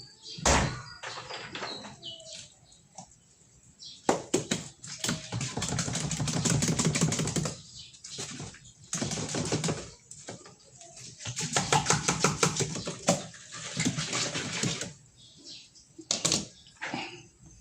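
Several bursts of fast clicking and scraping, a few seconds each with short pauses between, from hands working on a washing machine's drain valve parts.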